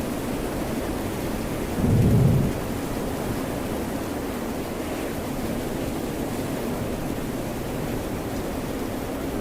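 Steady rain and ocean surf, with one short, loud low boom about two seconds in.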